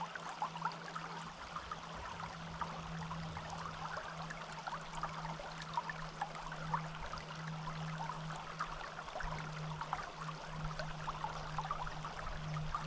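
Forest stream flowing: a steady babbling trickle with many small splashes and gurgles.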